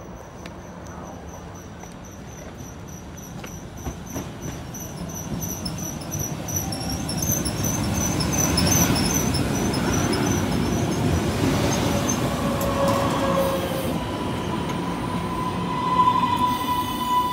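MBTA Green Line light-rail train approaching and rolling past at close range, its running noise building to a peak about halfway through. Near the end the wheels squeal with a steady high tone.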